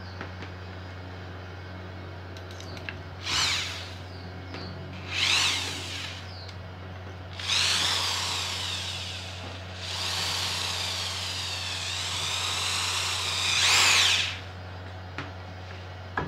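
Bosch GSR 7-14 E corded 400 W drill/driver in drill mode, run in bursts: two short trigger pulls, then two longer runs, its motor whine rising and falling as the variable-speed trigger is squeezed and eased.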